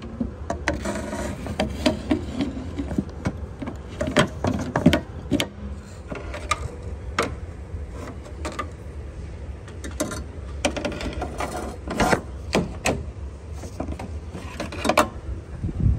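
Pry bar being worked between a car radiator's top clip and the AC condenser: irregular clicks, knocks and scrapes of metal and plastic, with a steady low hum underneath.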